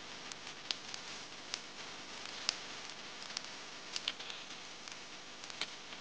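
Sliced mushrooms sizzling in oil in a stainless steel pan: a steady hiss with scattered sharp pops and crackles. In the second half a wooden spoon stirs them.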